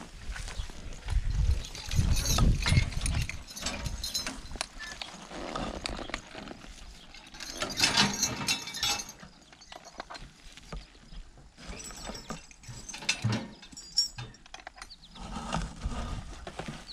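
Metal harness and hitch hardware clinking and rattling as a team of draft horses is unhitched from a horse-drawn hay rake, with the horses shifting about. The louder rattles come about two to three seconds in and again about eight seconds in.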